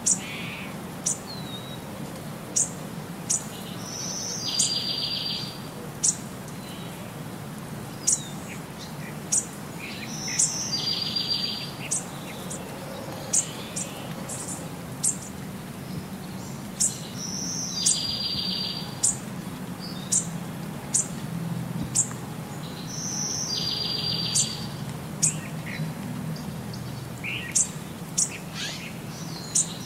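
Birdsong: sharp high chirps about once a second, with a short buzzy trill every six or seven seconds, all in the same repeating pattern, over a low background hum.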